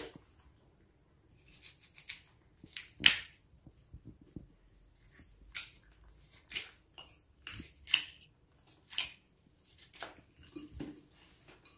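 Knife peeling and slicing a crisp guava: a series of short scraping cuts, roughly one a second.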